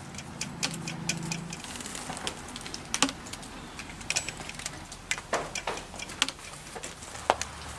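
Mechanism of an 1899 Singer Model 27 sewing machine being turned over by hand, making irregular light clicks and ticks; it turns freely and is not seized.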